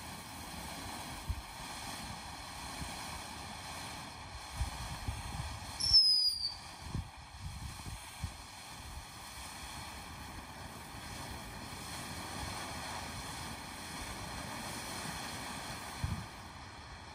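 Freedom Fireworks "Live Wire" fountain spraying sparks with a steady hiss and scattered low pops. About six seconds in comes a loud, short falling whistle.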